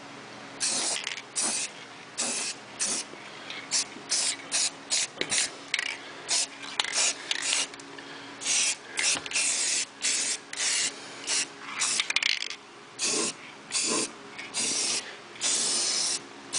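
Aerosol spray-paint can spraying in a rapid series of short hissing bursts, about twenty in all, each a fraction of a second, with a few longer blasts of about a second in the middle and near the end.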